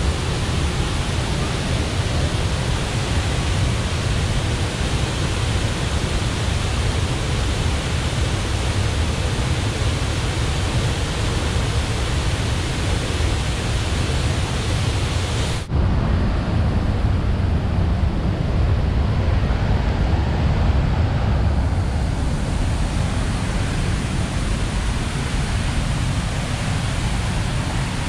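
Steady rushing of a waterfall pouring over rock ledges into a pool. About sixteen seconds in, the sound changes abruptly to a duller, deeper rush with less hiss.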